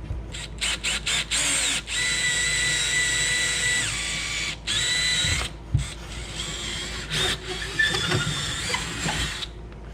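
Cordless drill running: a few quick trigger pulls, then a steady run of a few seconds with a high whine, then a longer uneven run under changing load.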